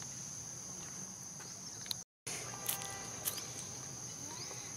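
Steady high-pitched drone of insects, with a few faint short chirps; the sound drops out completely for a moment about two seconds in.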